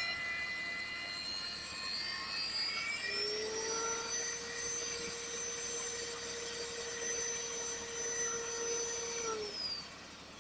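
Magnetic drill's motor whining steadily as it cuts a hole in thick steel plate. The pitch steps up about three to four seconds in, then falls away and the sound drops near the end as the motor winds down.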